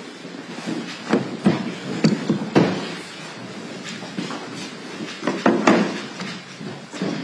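A series of wooden knocks and bumps as microphones are set down and shuffled on a table, over a low room hubbub; the loudest knocks come about two and a half seconds in and again near six seconds.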